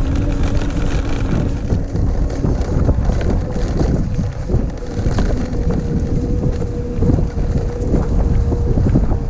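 Electric bike's 250 W rear hub motor whining steadily under full throttle on a steep climb, under heavy wind noise on the microphone and tyre rumble.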